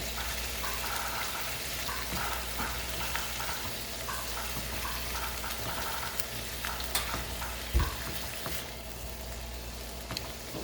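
Shrimp sizzling in melted butter and garlic in a frying pan, with the scrape and tap of a utensil stirring now and then. A dull knock about eight seconds in.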